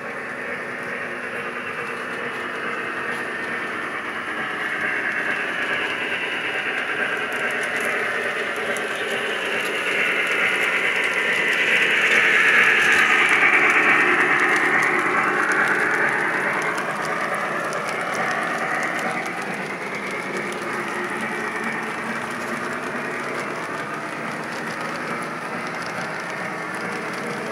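Lionel Lionmaster Union Pacific 4014 Big Boy O gauge model locomotive and train running on three-rail track, a steady rolling and motor noise. It grows to its loudest about halfway through as the train passes close by, then fades back.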